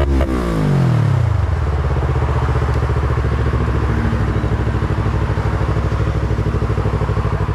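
A falling sweep in the first second, then a motorcycle engine idling steadily with a quick, even putter.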